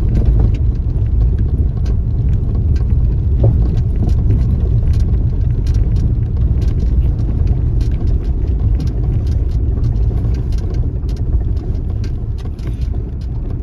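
Car driving slowly over a rough gravel and stone road, heard from inside the cabin: a steady low rumble of engine and tyres, broken by frequent small clicks and knocks.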